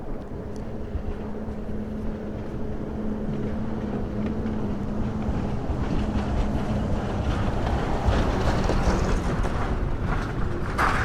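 A steady low engine drone over a rumbling background, with wind noise on the microphone that grows louder in the second half.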